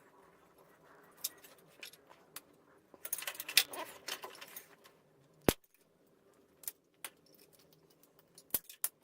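Scattered clicks, clinks and rattles of CRT television parts being handled during stripping, with a burst of rattling about three seconds in, a single sharp knock a little after the middle and a few quick clicks near the end.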